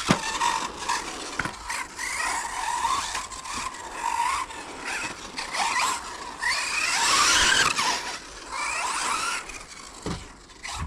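Brushless electric motor of a 1/10 RC buggy (4250 kV on a 2S pack) whining, its pitch rising and falling again and again as it accelerates and slows around a carpet track. The tyres scrub on the carpet and there are a few sharp knocks. The motor is loudest around the middle.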